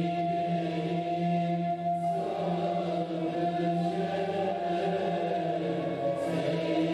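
Classical Turkish music: an ensemble holding long notes over a steady low tone, with the notes changing about two seconds in and again near the end.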